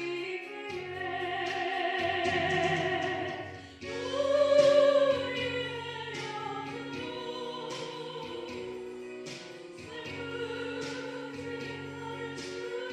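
A woman singing a Korean hymn of praise solo into a microphone, with vibrato, over steady instrumental accompaniment. She holds long notes, and the loudest one comes about four seconds in.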